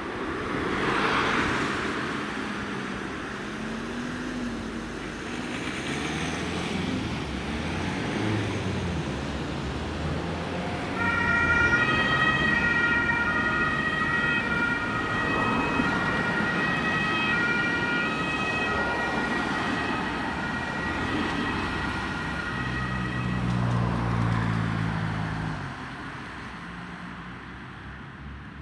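Emergency vehicles in town traffic: a vehicle goes by close about a second in, then an ambulance's two-tone siren (German Martinshorn) sounds for about ten seconds, alternating between two pitches over steady road traffic noise.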